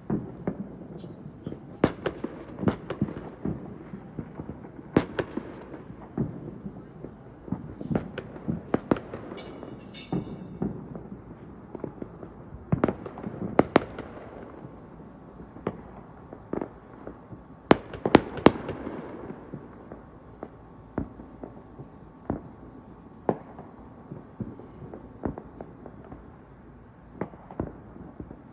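Fireworks going off: an irregular string of sharp bangs and pops, thickest around the middle, with a short burst of crackling about ten seconds in.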